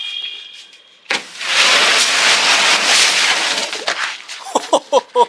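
A Gold Rush ground firecracker catches about a second in and gives a loud, even hiss as it sprays sparks. The hiss lasts about three seconds and then dies away.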